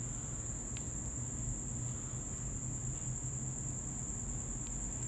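Steady background noise: a continuous high-pitched tone over a low hum, with two faint clicks about a second in and near the end.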